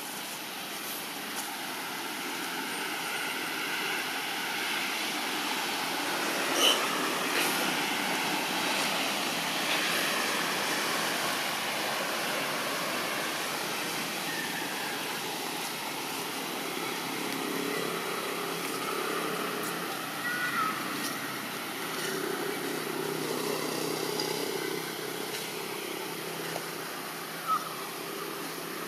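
Steady outdoor background noise, with a low hum joining in around the middle and a few short, high chirps in the second half.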